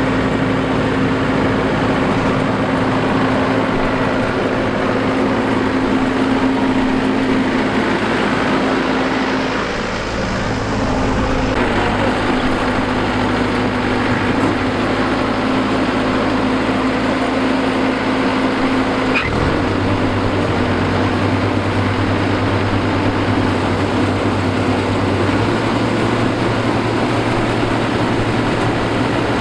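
Combine harvester running steadily at work, a loud, even machine drone with a held engine hum. The tone shifts suddenly twice, about a third and about two-thirds of the way through.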